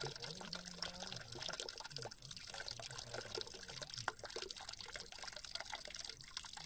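Running water trickling and dripping steadily, with small splashes.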